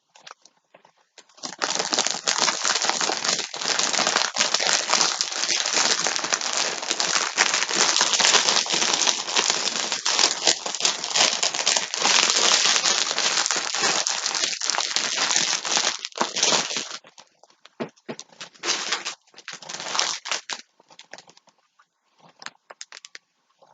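Plastic yarn packaging crinkling steadily as it is handled, for about fifteen seconds. Then come a few shorter crinkles before it falls quiet near the end.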